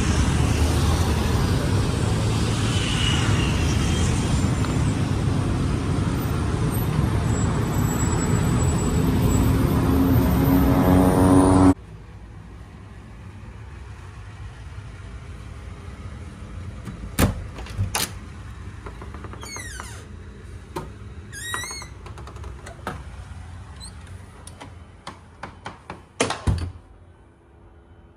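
Loud, steady street traffic noise with a vehicle engine rising in pitch as it speeds up. It cuts off suddenly to a quieter background of scattered clicks, knocks and a few short squeaks.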